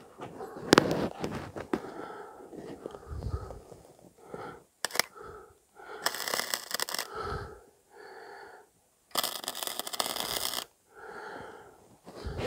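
A wire-feed (MIG) welder's arc crackling in two short bursts, about six and nine seconds in, each a second or so long. It is tacking a thin steel exhaust pipe joint on a low setting so as not to blow through the metal.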